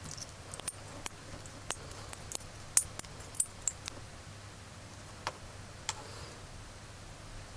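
Sharp, irregular clicks and taps of a small metal hand drill, a glue tube and hard plastic toy parts being handled and set down. There is a quick run of about a dozen clicks in the first four seconds, then two sparser ones.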